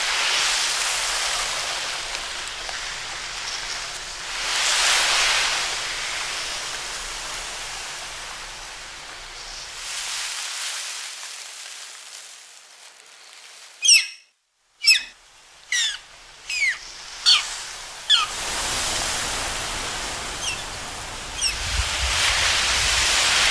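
Slow swells of wave-like rushing noise, then a pause. After that comes a run of about six short, sharp chirps falling in pitch, like bird calls, and then the rushing swells return with a few fainter chirps.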